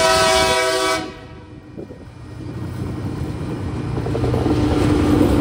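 Tasrail TR-class diesel locomotive's horn sounding one chord-like blast of about a second. The locomotives' engines then rumble, growing louder as they pull up to and pass the crossing.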